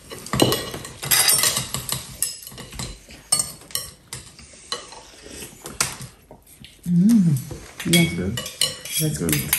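Chopsticks, forks and spoons clinking and scraping against ceramic bowls as people eat noodle soup, with many short irregular clicks. About seven seconds in, a brief voice sound rises and falls in pitch, and a few short voice sounds follow near the end.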